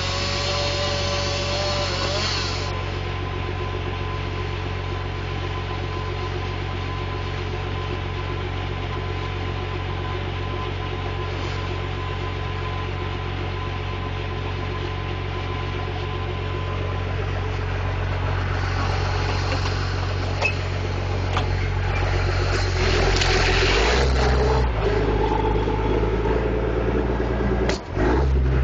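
John Deere 540E skidder's diesel engine running steadily at idle, heard from inside the cab. About 22 seconds in it revs up and gets louder, stepping in pitch a couple of times near the end.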